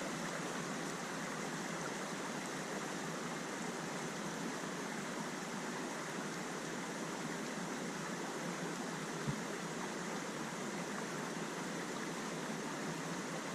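Small mountain stream running over rocks: a steady rush of flowing water.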